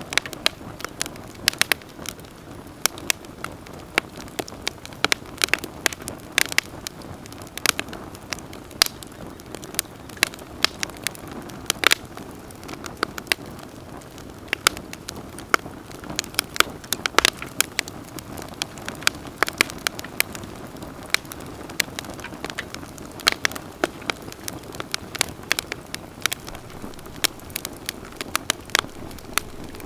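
Wood campfire burning, with frequent sharp irregular crackles and pops over a steady low rush of flame.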